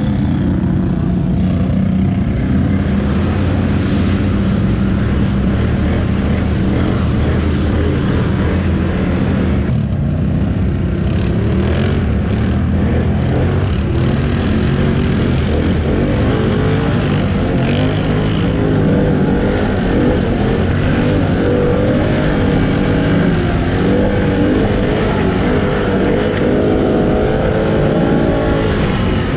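ATV engine running and revving, its pitch rising and falling repeatedly as the throttle is worked.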